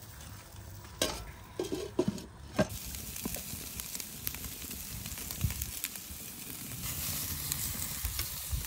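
Steaks frying in a hot pan, sizzling. A few clicks and knocks in the first three seconds, then the sizzle grows louder and holds steady.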